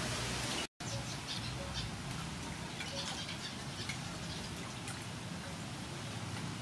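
Light splashing, patter and dripping of water as hands wash cut bitter gourd pieces in a steel bowl, over a steady outdoor hiss. The sound cuts out for a moment less than a second in.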